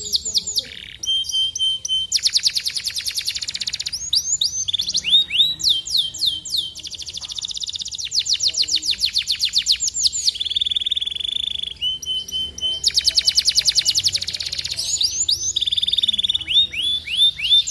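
Domestic canary singing a continuous song: fast trills of rapidly repeated notes alternate with runs of falling swooping notes and a few held steady tones, the longest of them about ten seconds in.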